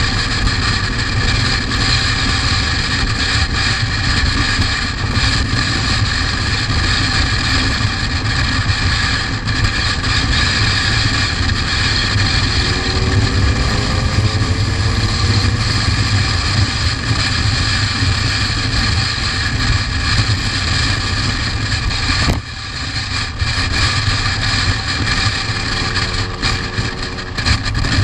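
Motorcycle running at highway speed, with wind rushing over the helmet-mounted microphone and road noise. A faint rising tone comes in near the middle, and the level drops briefly about three-quarters of the way through.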